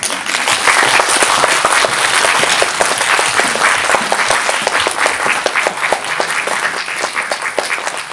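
Audience applauding: dense clapping from many hands that breaks out all at once and keeps up steadily, as the actors take their bow.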